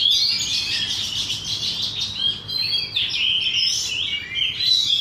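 Oriental magpie-robins (kacer) singing in a contest, a fast, unbroken run of varied whistles and chirps with overlapping phrases.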